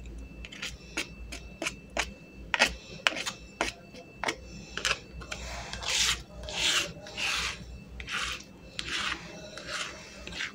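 Plastic spatula scraping chili paste around a stone mortar (cobek): a scatter of sharp taps in the first half, then a run of rasping scrapes, roughly one or two a second.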